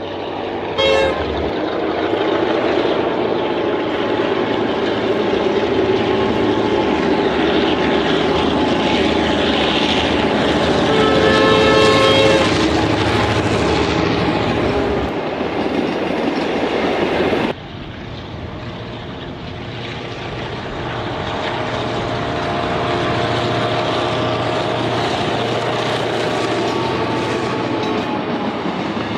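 Train running noise with a diesel locomotive horn: a short blast about a second in and a longer one around eleven to twelve seconds in. The sound cuts off sharply about two-thirds of the way through and carries on a little quieter.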